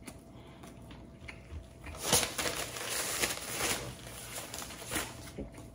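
Chewing a mouthful of baguette sandwich, with the sandwich's wrapper crinkling for a couple of seconds about two seconds in.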